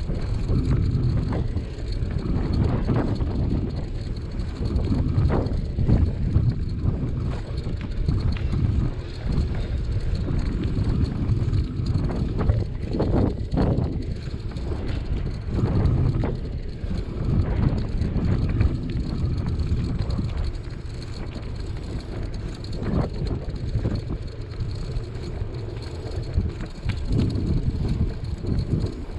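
Wind rumbling and buffeting on the microphone of a camera riding on a moving bicycle, mixed with the rumble of tyres rolling on asphalt. A few brief knocks come through, such as when the wheels hit bumps.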